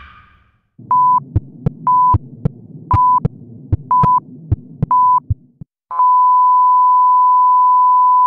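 Hospital heart-monitor sound effect: a short high beep about once a second over paired heartbeat thumps and a faint low rumble. Just before six seconds the beeping gives way to one unbroken steady tone, the flatline that signals the heart has stopped.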